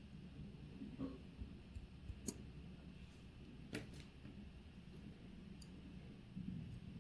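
A few small, sharp clicks of watchmaker's tools and watch parts being handled on the bench, over quiet room tone. The loudest clicks come about two and four seconds in, with a fainter one near the end.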